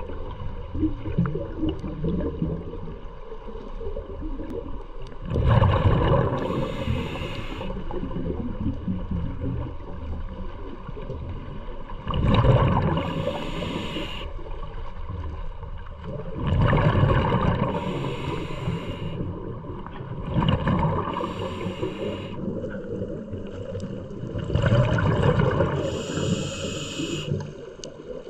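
A scuba diver breathing through a regulator underwater: five bursts of bubbling exhalation with a hiss, one every four to seven seconds, over a steady low underwater rumble.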